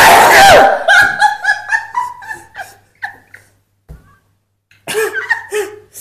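A man's loud sneeze, set off by tickling his nose with a rolled tissue, at the very start, followed by bursts of giggling laughter that return briefly near the end.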